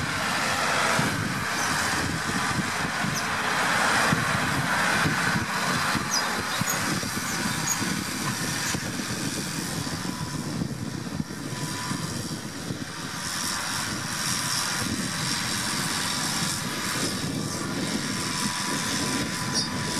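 McCormick MC135 tractor's diesel engine running steadily under load as it pulls a cultivator through a field.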